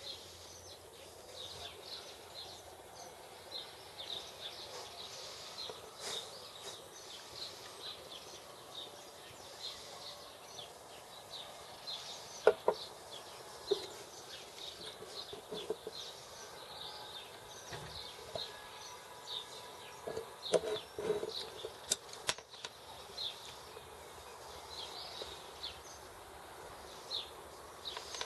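Metal parts of a bicycle drum-brake hub and a steel wrench clinking and knocking against each other and the wooden table as the hub is taken apart. There is one sharp knock a little before halfway and a cluster of knocks about three quarters through, over steady bird chirping.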